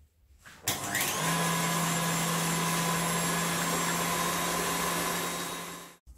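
KitchenAid stand mixer running on high speed, its wire whisk beating egg whites and sugar into meringue. The motor spins up with a rising whine shortly after the start, runs steadily with a hum and whine, then cuts off suddenly near the end.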